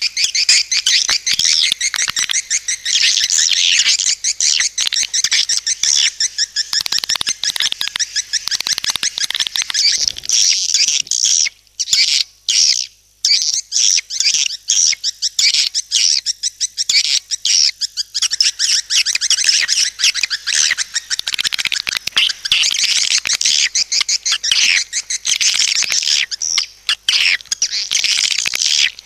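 Swiftlet-house lure call: dense, rapid chirping and twittering of swiftlets, played to draw the birds into a nesting building, with brief breaks about twelve and thirteen seconds in.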